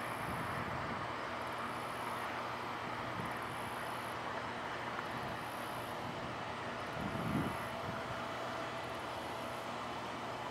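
Steady low drone of a tanker ship's engines and machinery with a rushing noise as the ship slowly moves past close by, and a brief low bump about seven seconds in.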